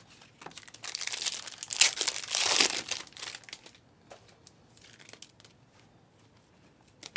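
Foil wrapper of a Panini Prizm trading-card pack crinkling and tearing for about two and a half seconds, loudest in the middle, followed by a few faint clicks.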